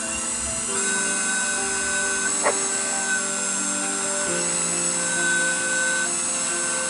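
Background music of held chords that change every few seconds, with a small variable-speed wood lathe, a King Industrial KWL-813VS, running underneath as finish is applied to a spinning pen blank with a paper towel. There is a single short click about two and a half seconds in.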